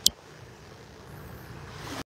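Light surf and wind on the microphone, an even hiss that swells a little near the end, with one sharp click just after the start.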